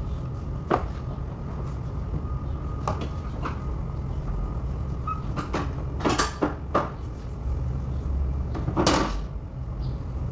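Scattered clicks and knocks as the front corner panels of a bus are handled and unfastened during removal, with a cluster of sharp knocks about six seconds in and a short rasp near nine seconds. A steady low hum runs underneath.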